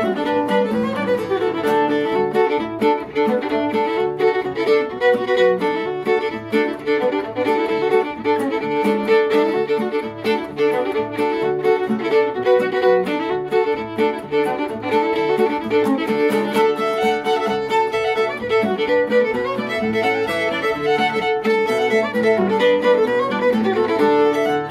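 Fiddle playing a fast, steady run of notes in an old-time reel, with acoustic guitar backing.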